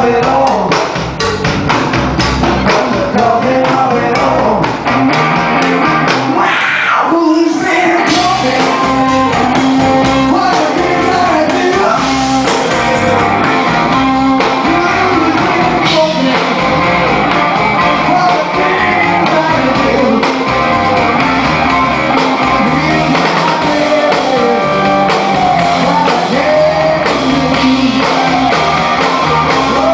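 A blues-rock band playing live, with a male singer, electric guitar, upright double bass and drum kit.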